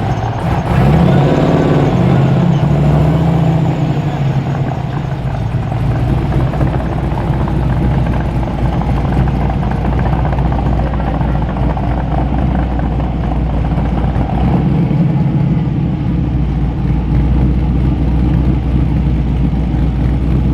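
Supercharged V8 engine blipped once about a second in, the pitch rising and then settling, then running with a steady deep rumble.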